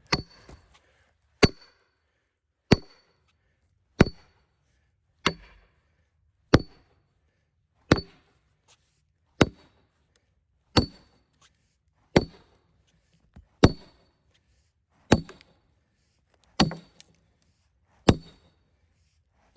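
Heavy hammer driving a metal splitting wedge into a cedar log: about fifteen ringing metal-on-metal blows at a steady pace of roughly one every second and a half.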